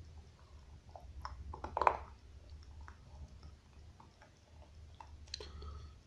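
A dog gnawing on a bone: irregular crunches and clicks, with the loudest run of crunching about two seconds in and another near the end.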